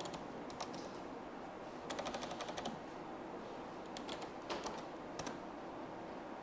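Computer keyboard typing in short runs of keystrokes: a few clicks at first, a quick burst of about eight keys around two seconds in, then scattered single keystrokes.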